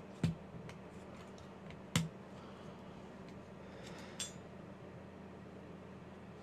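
Sharp clicks and light taps of small model-kit parts being handled and fitted: two louder clicks about two seconds apart, then a softer one a little past the middle, over a low steady hum.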